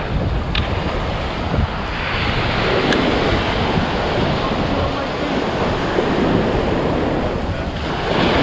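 Ocean surf breaking and washing up the beach, swelling about two seconds in and again near the end, with wind rumbling on the microphone.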